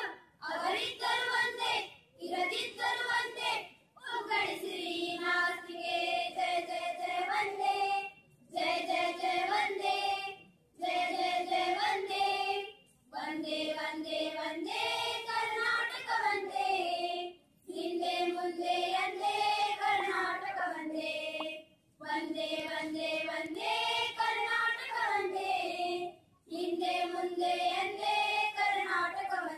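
A group of schoolgirls singing a song together in unison, in phrases of a few seconds broken by short pauses for breath.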